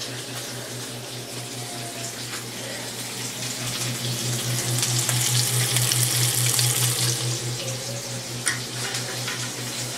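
Food sizzling in a frying pan, swelling louder in the middle and easing off again, over a low steady hum.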